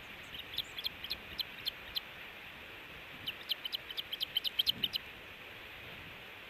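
Osprey calling: a run of short, high chirps over the first two seconds, then after a pause a faster, louder run that stops about five seconds in, over a steady hiss.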